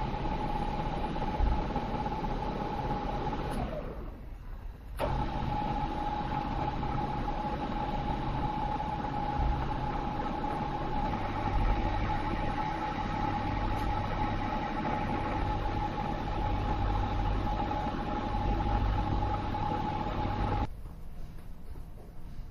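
Drilling machine's spindle motor running with a steady whine while a small bit cuts holes in a mild-steel part. The whine winds down about four seconds in, starts again a second later, and stops shortly before the end.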